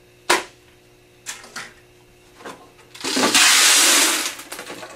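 M&M's candy poured from a plastic tub into a clear plastic vending-machine canister, a dense rattling rush for about a second and a half, beginning about three seconds in. A few light clicks and taps come before it.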